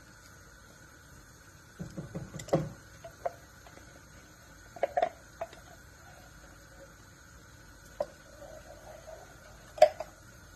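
Thick tomato sauce simmering in a pot, bubbles breaking on its surface in scattered clusters of soft pops and plops. Near the end a wooden spatula knocks against the pot as the sauce is stirred.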